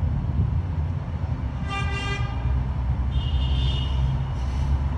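A short horn toot about two seconds in, a single pitched note lasting about half a second, over a steady low rumble; a fainter high-pitched tone follows about a second later.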